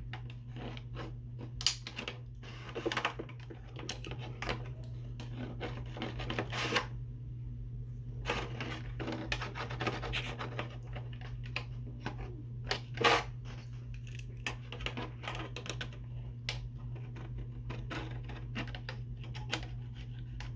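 A sticker being rubbed down and pressed onto a hard plastic RC truck body: scattered scratchy rubs, taps and clicks, over a steady low hum.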